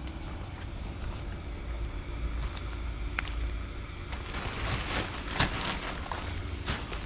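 Airblown inflatable's built-in blower fan running with a steady low hum. About four seconds in, a cluster of rustling and light knocking sounds comes in and runs for a couple of seconds.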